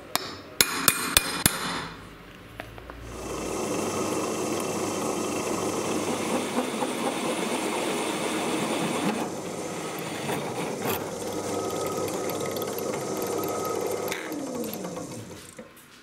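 A hammer strikes a centre punch on a steel plate about five times in quick succession. Then a drill starts and a hole cutter bores through steel with a steady grinding whir for about ten seconds, the motor winding down with a falling pitch near the end.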